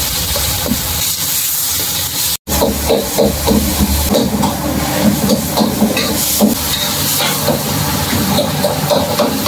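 Cherry tomatoes and sliced green chilies sizzling in a hot wok, a steady hiss of frying and steam while a metal spatula stirs them. A brief dropout comes about two and a half seconds in, then the hiss goes on with faint clinks and clatter.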